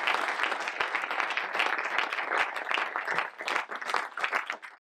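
Audience applauding: many hands clapping in a dense, even patter that cuts off abruptly near the end.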